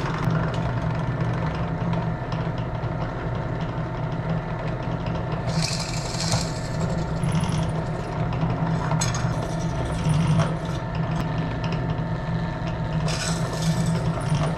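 Benchtop drill press running steadily, its bit cutting into the aluminum wing spar in three short spells of harsh cutting noise, about five seconds in, around nine to ten seconds, and near the end, as holes are opened up to number 30 size for flush rivets.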